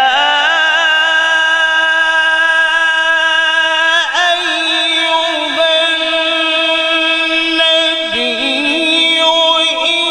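A man reciting the Quran in a long, drawn-out melodic voice. He holds the notes with ornamented turns, and the pitch shifts about four seconds in and again about eight seconds in.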